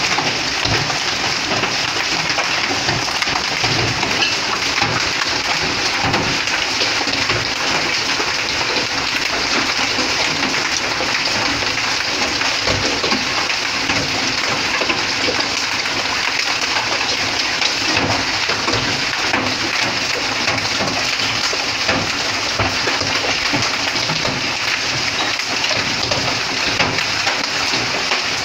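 Golf-ball-sized hail and heavy rain pelting down: a dense, steady clatter of countless hailstone impacts.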